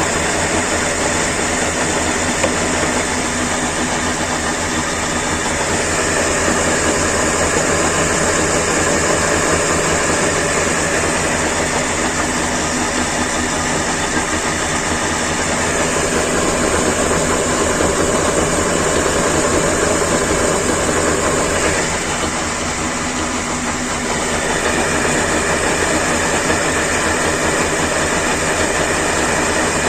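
Car running with a steady mechanical drone and hum, the hum being that of a wheel hub bearing. The level dips briefly about two-thirds of the way through, then a higher steady tone comes in.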